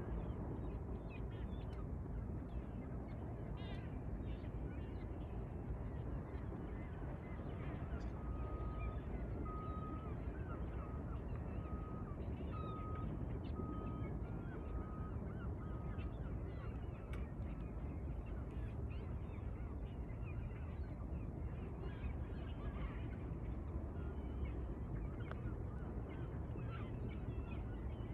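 Birds calling over a steady low rumble. In the middle there is a regular beep, about one a second, for several seconds.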